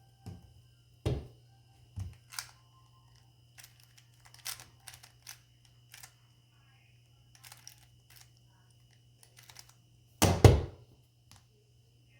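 Plastic 3x3 speed cube being turned, a run of quick clicking turns lasting about eight seconds, ending in a loud thump near the end as the solve is stopped on the timer.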